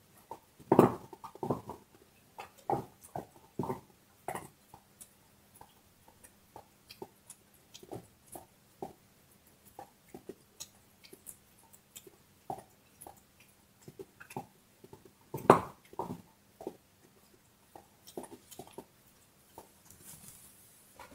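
A dog gnawing on a large bone: irregular crunches and clicks of teeth on bone, with the loudest bites about a second in and again about halfway through.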